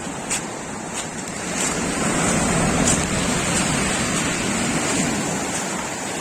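Sea waves washing onto the shore, swelling louder about two seconds in and easing off toward the end, with a few light clicks early on.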